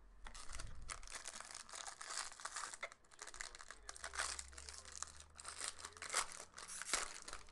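Foil wrapper of a 2018 Bowman Chrome baseball card pack crinkling and tearing open in the hands, a busy run of crackling with two sharper rips near the end.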